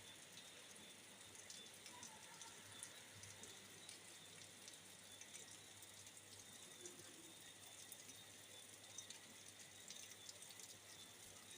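Near silence: a faint steady hiss with scattered light ticks.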